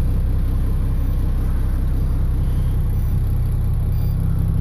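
The diesel engine of a 1993 Gulfstream Friendship diesel pusher motorhome idling with a steady low rumble, heard from inside the coach.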